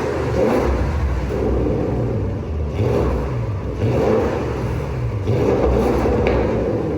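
Porsche Cayenne Turbo GT's twin-turbo V8 through its sport exhaust, revved up and let fall back about five times in a row.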